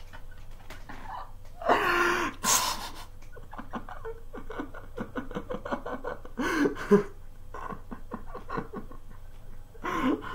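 A man laughing hard behind his hands: stifled, breathy laughter in short quick pulses, with louder outbursts about two seconds in, around seven seconds and near the end.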